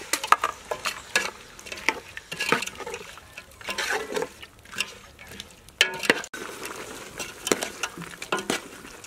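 Large metal spoon stirring chicken pieces in broth in a big metal cooking pot, with irregular scrapes and clinks of the spoon against the pot. One louder, briefly ringing clank comes about six seconds in.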